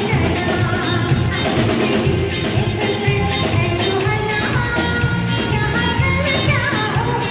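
Live band playing a Bollywood song, the drum kit keeping a steady beat, with a woman singing the melody into a microphone.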